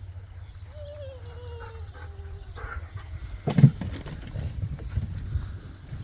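Suffolk lambs bleating: one falling call about a second in and a shorter, lower one after it. About three and a half seconds in comes a sharp knock, the loudest sound, followed by a few soft thuds.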